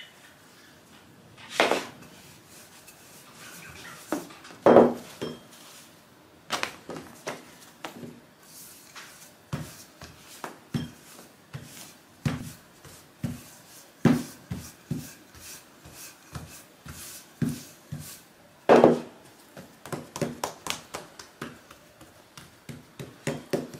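Wooden rolling pin rolling out soft dough on a tabletop: a string of irregular knocks and taps of the pin against the table, the loudest about two, five and nineteen seconds in.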